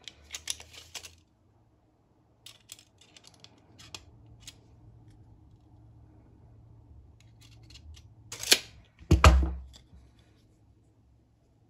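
Handling noise from a two-blade Buck 381 trapper pocketknife and a steel tape measure: scattered small clicks and ticks, then two loud sharp knocks close together about two-thirds of the way through.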